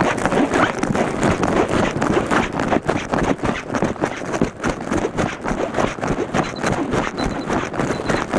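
Running footsteps on pavement with the hand-held camera jolting and rubbing at each stride, an uneven rhythmic thumping. Faint short high-pitched beeps start about six seconds in.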